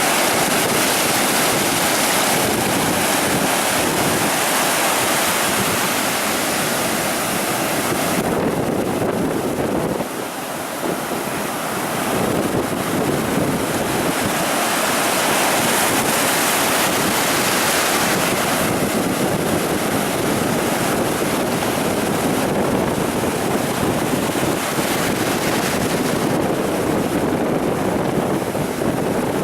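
Ocean surf washing steadily onto a beach, swelling and easing over several seconds, with a brief lull about ten seconds in.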